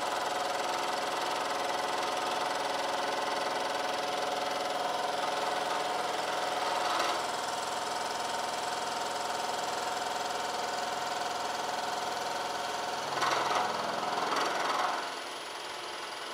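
Milling machine spindle running while an indexable face mill with triangular TPG inserts cuts 6061 aluminium blocks in a vise: a steady mechanical hum with the noise of the cut. It grows briefly louder about halfway, is loudest with a harsher cutting rattle for a couple of seconds near the end, then settles a little quieter.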